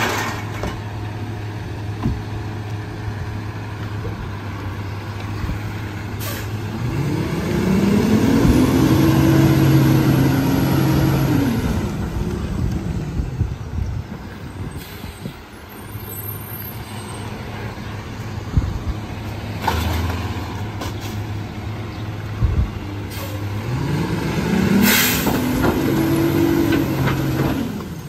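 Split-body rear-loader garbage truck's diesel engine idling, then revving up, holding and dropping back twice, about 7 seconds in and again about 24 seconds in, as the hydraulic packer cycles. A few short knocks and a brief hiss of air are heard.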